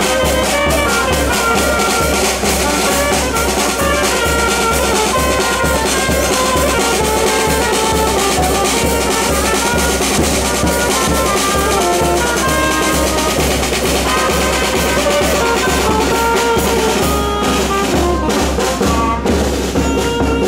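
Bassa banda, a small southern Italian street band of brass and percussion, playing a tune: brass instruments carry the melody over a steady bass drum beat.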